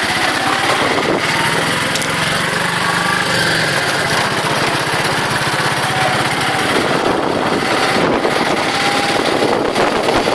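Auto rickshaw's small engine running steadily under way, heard from inside the open cab.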